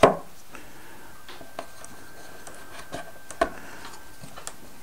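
Wooden clicks and taps of a model boat kit's roof and cabin parts being handled: one sharp click at the start, then a few softer taps spread out.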